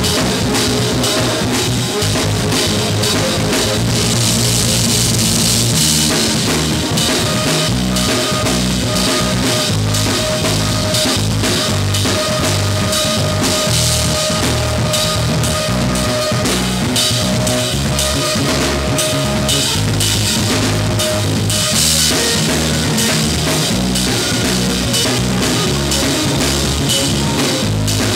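Live instrumental band music: a drum kit played busily with bundled rods, with cymbal wash and bass drum, over an electric bass line. A held higher note runs through the middle stretch.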